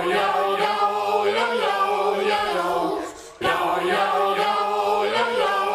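Several voices singing in close harmony with no instruments, in two similar phrases split by a brief break about three seconds in.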